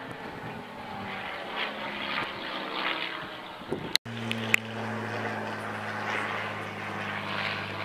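Piston engine of a Second World War fighter flying past, a steady propeller drone. About halfway through it breaks off with a click and comes back stronger.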